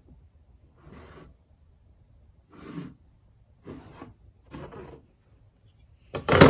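A steel square's edge scraping across sanded Bondo filler on a metal door as the patch is checked for level: four short rasping strokes about a second apart, then a louder scrape near the end.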